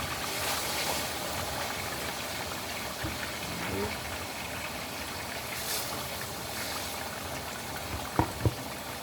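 Chicken pieces frying in hot oil, a steady sizzle throughout. Two sharp knocks near the end.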